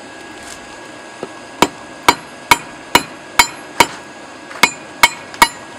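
Hand hammer forging a hot tire iron into a punch on an anvil: about nine ringing blows, a little over two a second, with a short pause partway through.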